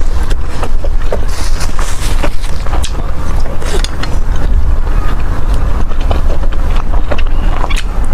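Close-miked eating: wet chewing clicks and a few brief slurps over a steady low rumble.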